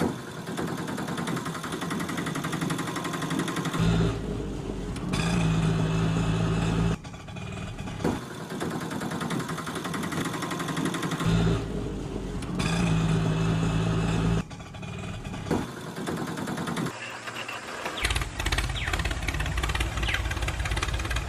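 Dubbed-in engine sound effect, running with a steady low note, repeating in a loop about every seven seconds.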